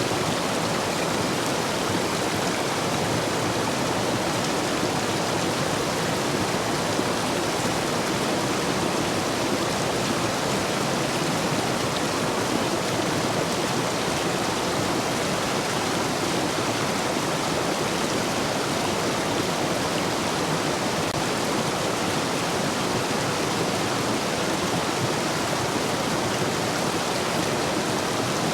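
Urban stream rushing steadily through the gaps between stepping stones, running high after heavy rain.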